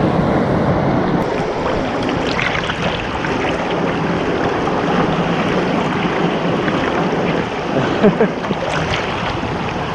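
Steady rush of water pouring over a small waterfall, close by and loud.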